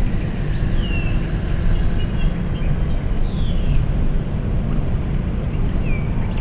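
Industrial ambience by a cement factory, recorded on a Nagra 4-S reel-to-reel and played back at reduced tape speed so it is pitched down: a steady, deep rumble with a few short falling chirps above it.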